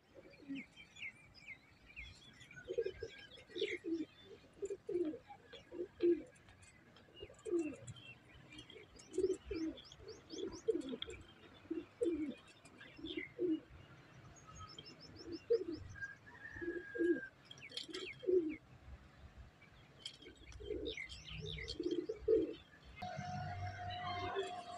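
Doves cooing over and over in short low phrases, with small birds chirping and twittering higher up. A steady hum comes in near the end.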